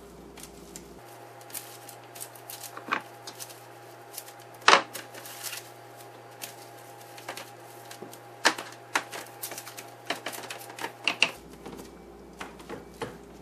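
Wooden rolling pin rolled and pressed over dough under plastic wrap on a parchment-lined sheet pan: irregular light clicks, taps and crinkles of the plastic wrap and paper, with one louder knock about halfway through.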